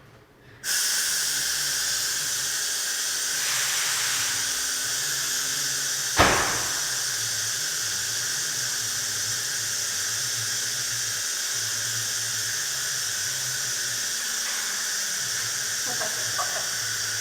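Vehicle lift lowering: a steady hiss from the hydraulic lowering valve starts suddenly about a second in and keeps going, with a single sharp clank about six seconds in.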